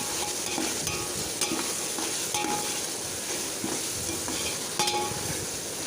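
Onion and tomato masala frying in oil in a biryani pot with a steady sizzle while a spoon stirs it, scraping the pot a few times.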